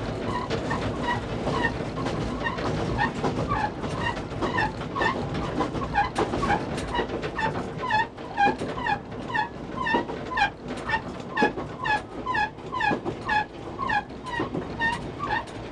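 Level crossing warning bell ringing in a steady rhythm of about two strikes a second, growing louder toward the end. Underneath is the running noise of an electric train heard from the driver's cab, with the clicks of rail joints.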